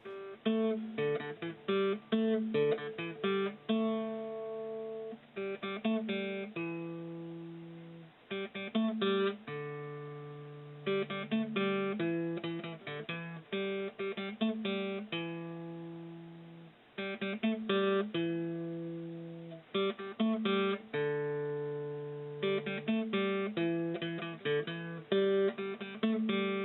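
Solo acoustic guitar music: plucked notes in repeating phrases, some held notes left to ring and fade.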